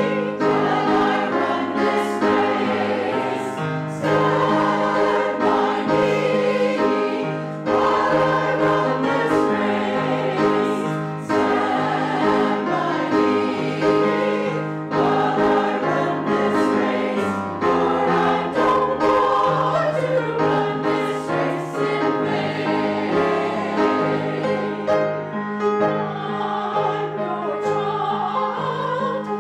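Worship song: voices singing together over instrumental accompaniment, with a steady, even loudness throughout.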